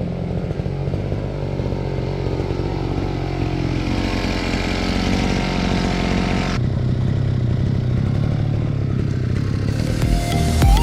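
Two-stroke brush cutter engine running under cutting load, its note changing about six and a half seconds in.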